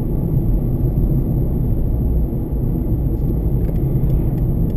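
Steady low road and engine rumble heard inside a car's cabin while driving at about 60 km/h, with a few faint clicks near the end.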